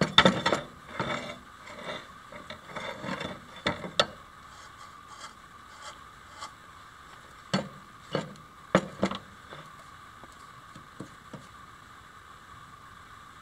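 Irregular metallic clicks, taps and scrapes from hands working at the hub and bearing of a metal bandsaw wheel, busiest in the first four seconds, then a few sharper clicks about eight to nine seconds in. The bearing had been running without grease.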